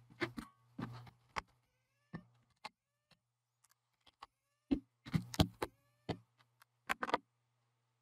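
Small screws being taken out of a 2.5-inch laptop hard drive's metal caddy with a pen-style electric precision screwdriver: a faint motor whir with scattered light clicks and taps of metal parts, busiest about five seconds in.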